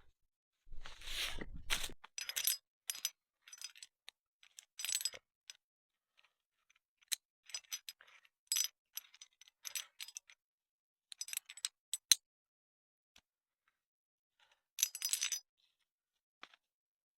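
Small hard objects, likely metal, clinking and jangling in short irregular clusters with a brief high ringing after many of the hits. A rustle of handling about a second in.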